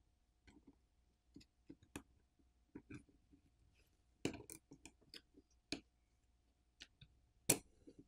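Scattered faint clicks and taps of a plastic pry pick against a smartphone's main board and frame as the board is pried loose. The two loudest clicks come about four seconds in and near the end.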